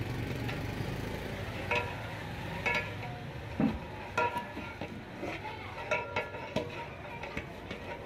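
Long metal ladle stirring and scraping rice in a large aluminium cooking pot. Plucked-string background music comes in a little under two seconds in, as short repeated notes.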